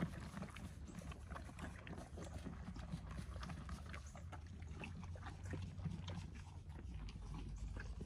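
Horses eating sweet feed from a concrete trough: a busy, irregular crunching and munching of grain, many short crisp clicks from chewing and from muzzles working in the feed, over a steady low rumble.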